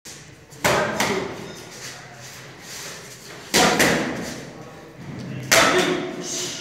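Boxing gloves smacking into focus mitts: three combinations of two quick hits each, a jab followed by a left swing. Each hit is sharp and echoes briefly.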